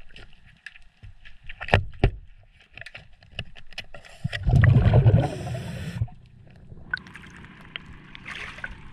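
Clicks and sharp knocks of a tool working an old clamshell zinc anode off a boat's trim tab, with two loud knocks about two seconds in. A loud gurgling rush of water follows about four seconds in and lasts about two seconds.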